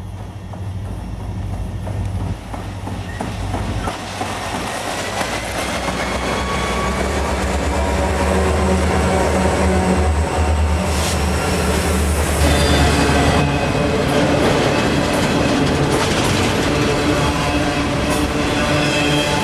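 Diesel freight locomotives approaching and passing close by, their engines growing steadily louder, loudest about two-thirds of the way in. Then double-stack freight cars roll past with wheel and rail noise and thin wheel squeal on the curve.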